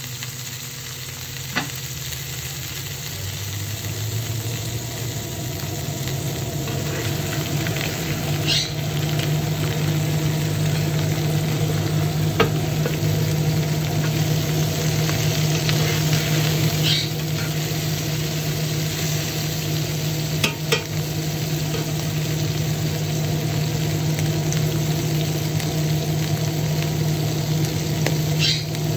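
Grouper steaks frying in hot oil in a cast-iron pot, sizzling steadily. A fan hums under it, growing louder over the first several seconds, and metal tongs click against the pot a few times as the fish is turned.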